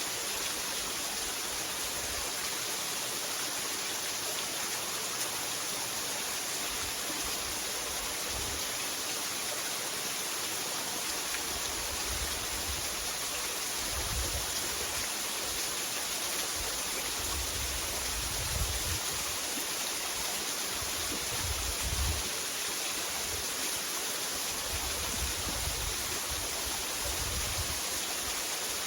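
Waterfall rushing steadily, a constant even hiss of falling water, with occasional brief low rumbles underneath.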